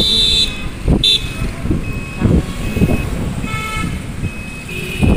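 Wind buffeting the microphone over engine and road rumble while riding a scooter through town traffic. A short high beep repeats about twice a second, and brief vehicle horn toots sound at the start, about a second in, and again past halfway.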